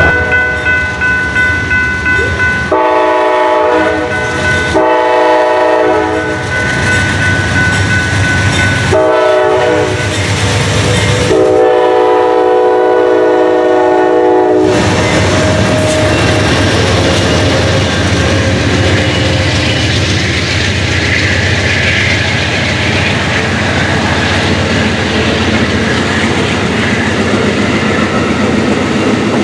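SunRail commuter train sounding its horn in the grade-crossing pattern: long, long, short, then a last long blast. The horn is followed by the train rolling past with steady rail noise.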